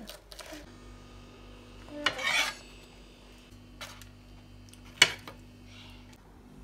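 Metal slotted spatula on a plate: a short scrape about two seconds in as a mini pizza is slid into place, then a single sharp clink against the plate about five seconds in.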